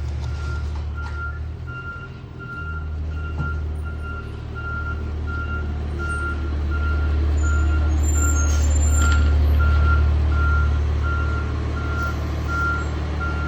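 Fire truck backing up: its reverse alarm beeps steadily, about two beeps a second, over the low running of its engine, which grows louder through the middle and then eases.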